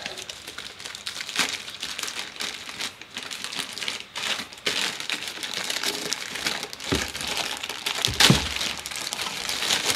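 Thin plastic packaging bag crinkling and rustling irregularly as hands work a turntable scanner arm out of it, with a louder crinkle about eight seconds in.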